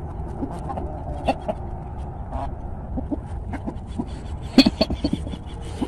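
Free-range chickens clucking softly in short, scattered calls while they feed on the ground. About four and a half seconds in comes a sudden louder sound, a sneeze, followed by a quick run of clucks.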